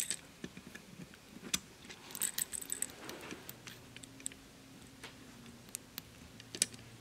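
Small metal roller chain clinking and ticking in irregular light clicks as it is fed by hand around the timing sprockets of an aluminium and steel model inline four-cylinder engine.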